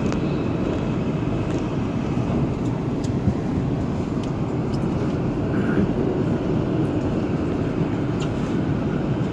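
R142 subway train rolling into a station and slowing to a stop, with a steady rumble and a few faint ticks.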